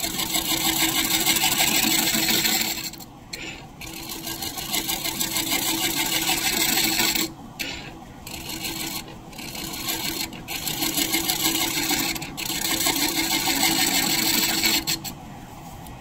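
Large scraper cutting the face of a spinning maple disc on a wood lathe: a loud rasping scrape, broken off briefly several times as the tool is eased away. About a second before the end the cutting stops and only the lathe's quieter running is left.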